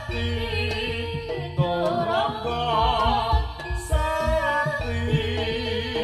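Live Javanese jaranan music played loud through a stage sound system: a wavering sung melody over a percussion-led gamelan-style ensemble with repeated low drum strokes.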